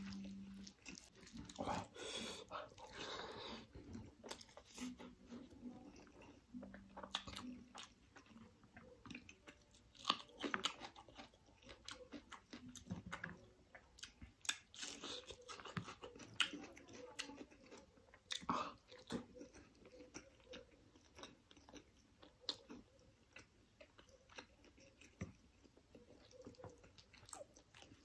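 Close-miked eating sounds: wet chewing, lip smacks and bites of curried chicken, rice and raw onion, coming as an irregular run of short clicks and crunches.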